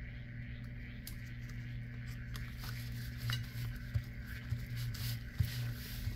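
Cup turner's small motor humming steadily as it rotates an epoxy-coated tumbler, with a few soft clicks and rustles from a gloved hand spreading the epoxy over the cup in the second half.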